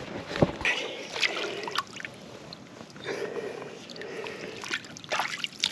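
Shallow water sloshing and splashing around a hooked bull shark held at the shoreline, with a few sharp knocks.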